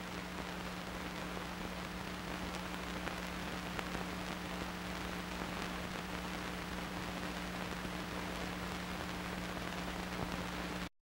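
Steady hiss with a low, even hum, the background noise of an old film soundtrack with no music or voice. It cuts out abruptly to silence near the end.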